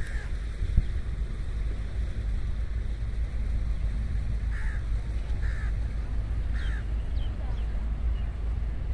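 Wind rumbling on the microphone, with a bird giving three short calls about a second apart from about halfway through, then a few fainter chirps.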